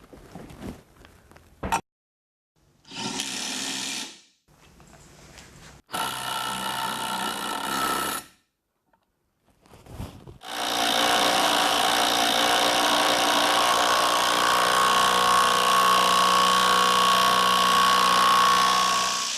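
Bosch GDS 18 V-LI cordless impact wrench running in short bursts, then one long steady run of about nine seconds near the end.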